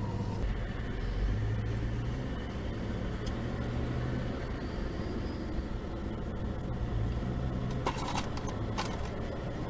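Steady low rumble of a car running, heard from inside the cabin, with a few short clicks about eight to nine seconds in.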